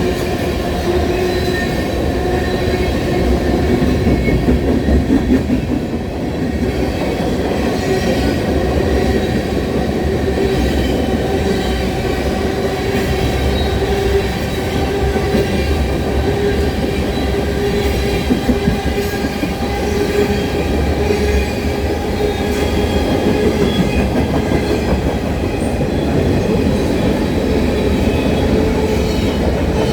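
CN freight train's cars rolling steadily past, wheels running on the rails with a continuous rumble and a sustained squeal of wheels on rail.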